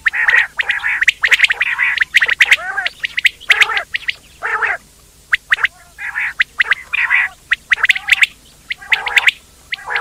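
Quail calling over and over: quick runs of short, sharp notes mixed with lower wavering calls, with a short pause about five seconds in.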